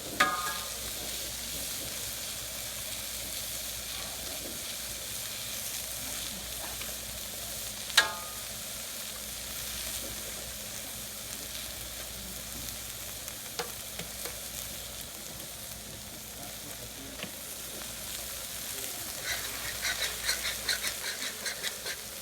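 Fried rice, mixed vegetables and egg sizzling in a hot wok in oil and butter. There is a sharp ringing metal clink right at the start and another about eight seconds in. Near the end comes a rapid run of clicking strokes as the food is stirred.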